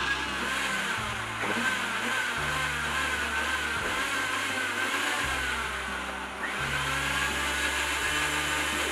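Countertop blender motor running at speed, puréeing frozen strawberries in oat milk, with a wavering whine as the frozen fruit loads the blades. It dips briefly about six seconds in, then picks up again.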